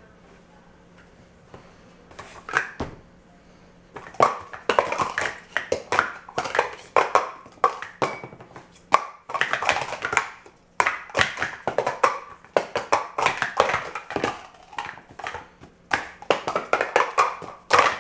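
Speed Stacks sport-stacking cups clacking in fast runs of sharp plastic clicks as the cups are stacked up into pyramids and brought down again on the mat. The runs start about four seconds in, after a couple of light taps, and break off briefly twice.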